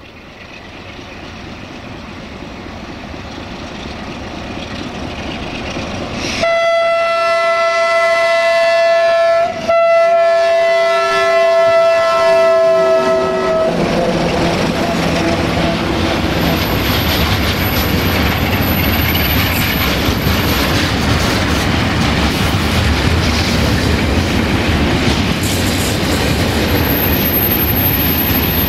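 GFR ND2 (060-DA) Sulzer-engined diesel-electric locomotive hauling a freight train, growing louder as it approaches. It sounds its two-tone horn in two long blasts, the first about 3 s and the second about 4 s, with a short break between. It then passes close by, and the covered freight wagons roll past with steady rumbling and rhythmic wheel clatter over the rail joints.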